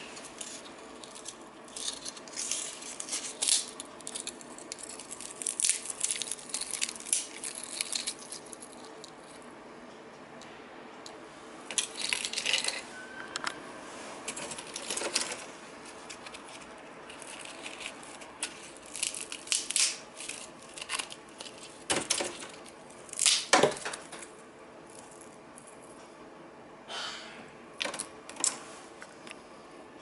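Dried, brittle mandarin orange peels crackling and rattling as a hand picks them up, handles them and lets them fall back onto a plastic mesh dehydrator tray, in irregular bursts with the loudest clatter a little after twenty seconds in.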